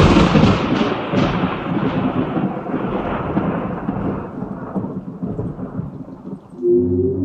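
A thunderclap rolling away into a long rumble that fades slowly over several seconds. Near the end, low ringing tones like a gong or bells start up.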